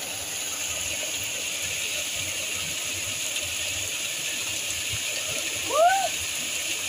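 Waterfall pouring into a river pool: a steady, continuous rush of falling water. About six seconds in, a short vocal cry rises and falls in pitch over it.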